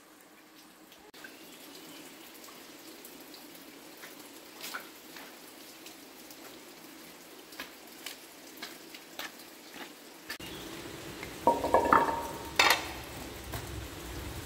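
Footsteps on wet stones of a shallow stream bed over a faint rush of running water. About three-quarters of the way through, metal cooking pots clank as they are set down on the ground, one knock ringing briefly.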